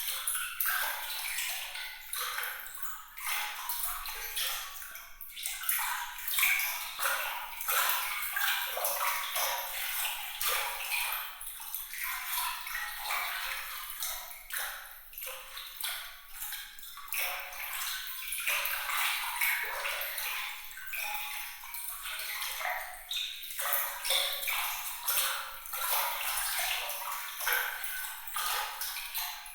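Water trickling and splashing, thick with small, bright plinking drops; a thin, high sound with nothing in the low end, its loudness rising and falling unevenly.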